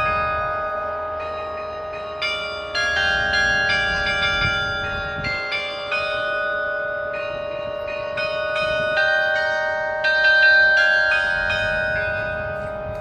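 A 95-bell carillon playing a tune, its bells struck one after another every half second or so, each note ringing on and overlapping the next.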